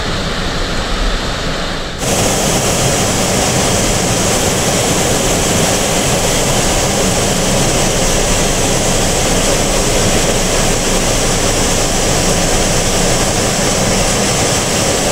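Flood-swollen, muddy waterfall rushing with a loud, steady noise of churning water. About two seconds in the sound jumps to a closer, louder and brighter rush.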